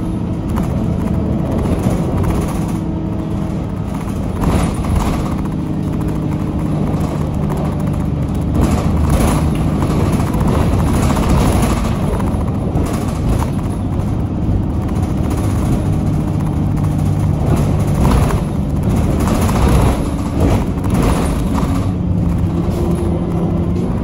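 A city bus's diesel engine and turbocharger whine, heard from inside the passenger saloon as the bus drives along. Occasional knocks and rattles come through over the steady engine sound.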